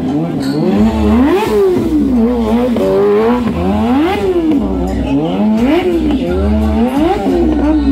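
Sport motorcycle engine revved up and down over and over, roughly once a second, as the bike turns.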